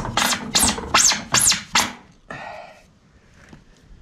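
Hand-tool scraping strokes on the old roof cable-entry fitting as it is worked loose, about three strokes a second for two seconds, then one short rasp.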